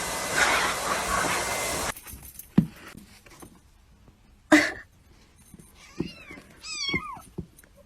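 Cat meowing several times in quick short calls that fall in pitch, near the end, after a couple of knocks and one loud thump. A steady hiss cuts off abruptly about two seconds in.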